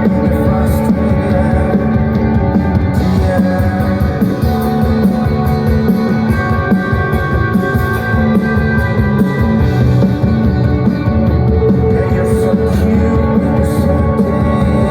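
Live rock band performing through a loud PA: electric guitars, bass and drums, with a singing voice.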